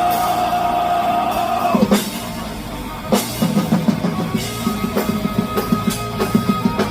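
Live rock band playing: a long held note ends about two seconds in on a drum hit, the band drops back briefly, then the drum kit comes back in with a steady beat under guitar and a held high note.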